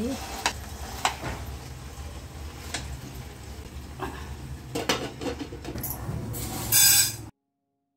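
Metal fork and spoon clinking and scraping against cooking pans and a steel plate, in scattered light knocks. Near the end comes a short, loud rattling rush as broken wheat is tipped from the plate into the empty pan.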